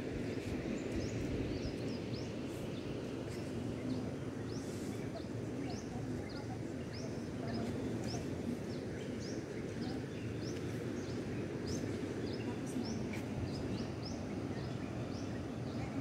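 Small birds chirping in short rising calls, one or two a second, over a steady low rush of outdoor background noise, with faint distant voices.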